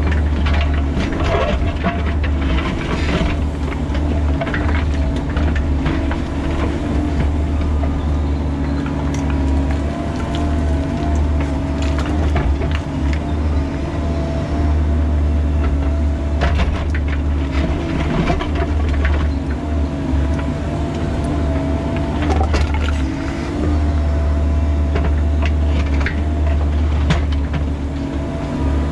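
Bobcat E45 compact excavator digging in rocky ground, heard from the operator's seat: its diesel engine runs steadily under load with a steady whine from the hydraulics. Over it the bucket scrapes and clanks against rock and stone again and again.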